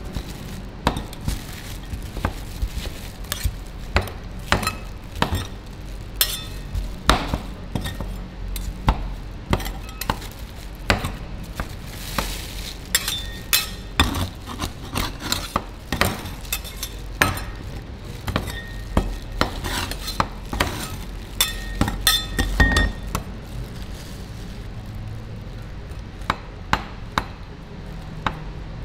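Metal spatula scrapers chopping chocolate bars on a steel rolled-ice-cream cold plate: a run of irregular sharp clinks and taps, one or two a second, a few of them ringing briefly.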